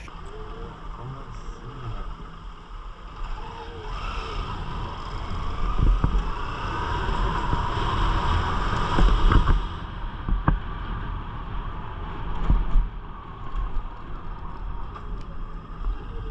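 Honda CG Titan 160's single-cylinder engine running while the motorcycle is ridden, with wind buffeting the microphone. The engine pulls harder from about four seconds in, then eases off around ten seconds in.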